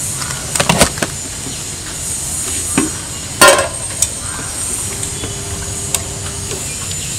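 Steady street traffic rumble, broken by a few sharp clinks and knocks of steel food containers and a serving ladle being handled. The loudest knock comes about three and a half seconds in.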